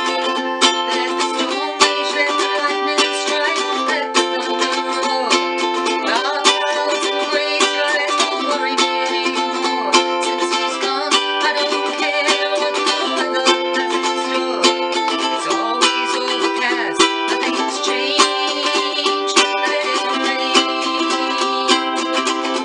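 Acoustic ukulele strummed in a steady rhythm, chords ringing under regular strum strokes.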